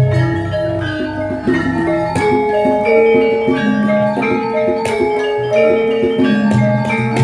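Javanese gamelan ensemble playing a lancaran in pelog tuning: bronze metallophones strike a steady run of ringing notes over sustained low gong tones.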